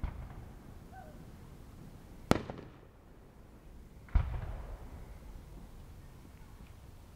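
Aerial fireworks exploding: two sharp bangs about two seconds apart, each followed by a low rumbling echo that dies away.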